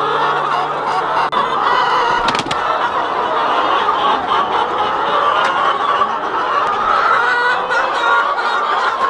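A large flock of laying hens clucking and warbling all at once in a dense, overlapping chorus. A single brief knock comes about two and a half seconds in.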